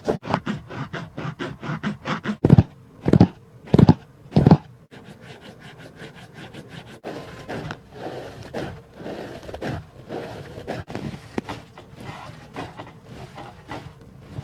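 Unboxing handling noise of a shoebox and running shoes: quick scraping and rustling, with four loud knocks under a second apart a few seconds in, then softer rubbing and rustling.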